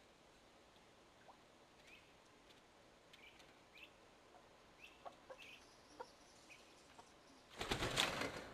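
Chickens making a scatter of short, faint calls, followed near the end by a loud burst of noise lasting about a second.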